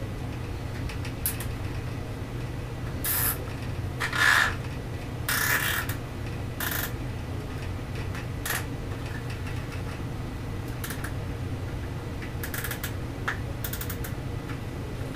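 Short, irregular scraping and rustling sounds of a clear plastic tube and its fittings being handled, the loudest a few seconds in, over a steady low hum.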